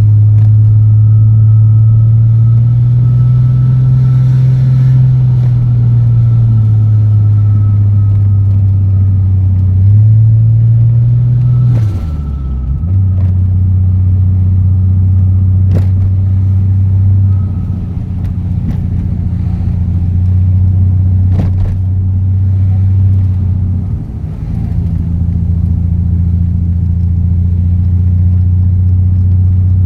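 Turbo Toyota Supra engine through an HKS straight-through exhaust with a rear cannon muffler, running on the road with a deep, steady drone. The revs rise gently and ease off, then drop sharply and pick up again twice, about twelve and twenty-four seconds in, with a few short clicks along the way. The owner reports a misfire on one cylinder.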